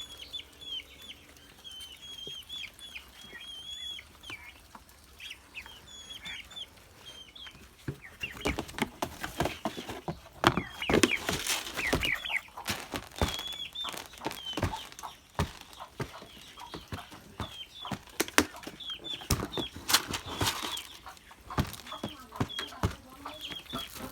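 Muscovy ducks and ducklings on a farm: many short, high peeps repeat throughout, and from about eight seconds in a busy stretch of scuffling, rustling and wing flapping comes in, easing off near the end.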